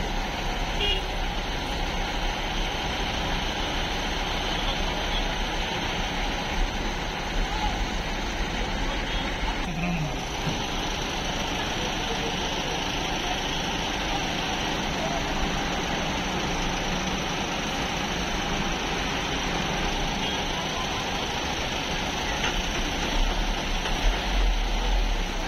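Steady running noise of heavy truck engines in a queue of traffic, with indistinct voices.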